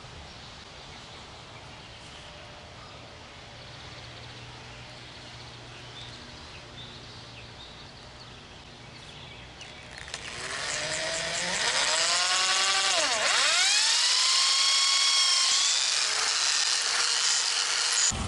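Handheld electric drill boring into a piece of hickory clamped in a bench vise. It is faint for the first ten seconds, then runs loud from about ten seconds in, its motor pitch dipping down and climbing back up again partway through.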